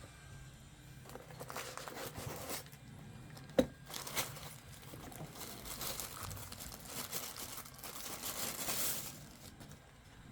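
Plastic packaging crinkling and rustling in irregular bursts as it is handled, with one sharp click about three and a half seconds in.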